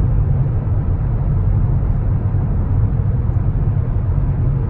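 Steady low rumble of road and engine noise inside a Ford Flex's cabin while cruising through a highway tunnel.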